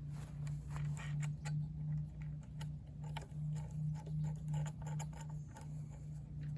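Irregular small metallic clicks and ticks of bolts and mounting hardware being handled and fitted by hand, over a steady low hum.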